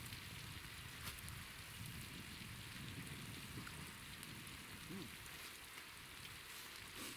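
Meat sizzling on a cooking disc over a wood fire: a steady, soft hiss with a couple of faint clicks.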